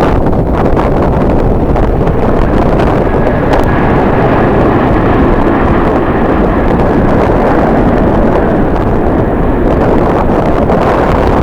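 Strong wind blowing across the microphone, a loud, steady rumble that fills the low and middle range. A faint high steady tone sits under it for a few seconds in the middle.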